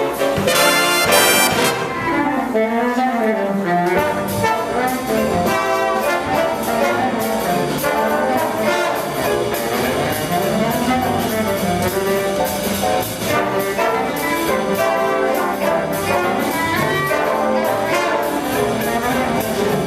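Jazz big band playing a swing chart, brass and saxophones together, with a low line weaving up and down beneath.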